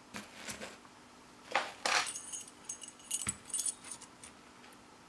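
Metal padlocks and keys clinking and clattering as they are handled and set down, in several short bursts with a high metallic ring, the loudest about a second and a half in.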